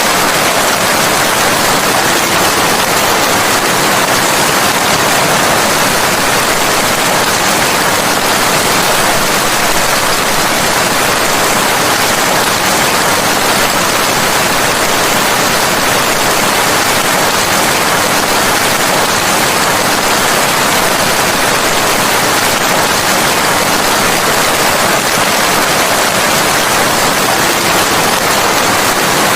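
Steady, loud rain: an even hiss with no distinct drops, thunder or other events.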